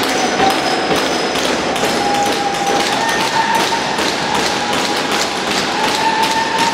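Box lacrosse play: a rapid, uneven run of hard clacks and knocks from sticks hitting sticks and the ball hitting sticks and boards, with a faint wavering tone underneath.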